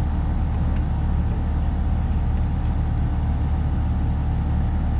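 Steady low mechanical hum with a faint steady higher tone above it, from running machinery.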